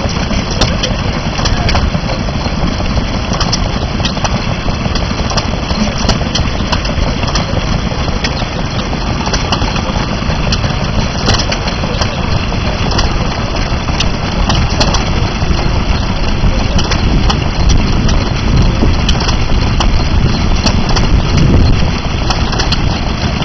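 Vintage vertical single-cylinder stationary engine with twin flywheels running steadily, a continuous knocking beat with sharp, irregular clicks over it.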